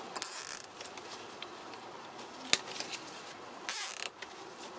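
Nylon cable ties being pulled tight through their heads: two short zipping ratchets about three and a half seconds apart, with a sharp click between them.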